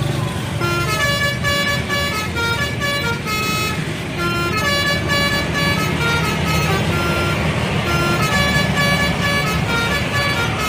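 Indonesian bus telolet horn playing a quick tune of stepped notes that change several times a second, starting about half a second in and lasting nearly ten seconds. A bus engine rumbles low underneath.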